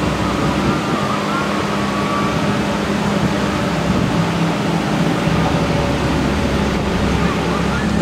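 A steady low mechanical hum over continuous outdoor noise, with a faint wavering tone in the first few seconds.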